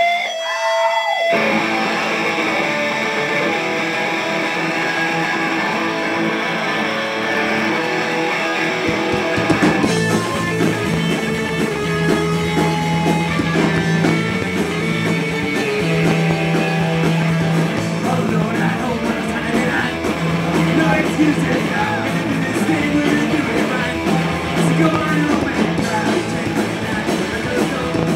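Live punk-pop band playing loudly on electric guitar, bass and drums. The song opens with electric guitar alone, and the bass and drums come in about a third of the way through.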